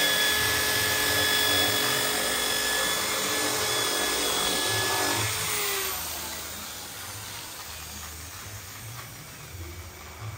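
Small corded electric hand drill running at a steady speed, then switched off about five seconds in and spinning down. A faint low rumble follows.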